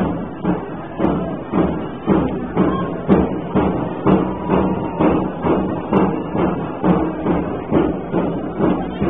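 A drum beaten in a steady rhythm, about two beats a second.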